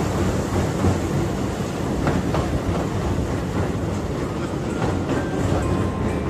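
Train running along the track: a steady rumble with the wheels clicking over the rail joints.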